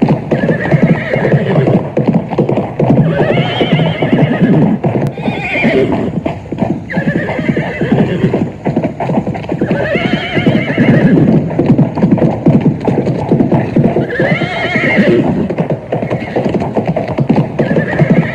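A horse galloping, hooves beating fast and steadily, while it neighs again and again, a wavering call every two to four seconds.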